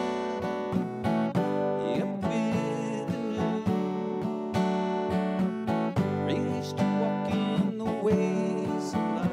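Guitar played alone in an instrumental break of a gospel song, strummed chords with picked notes.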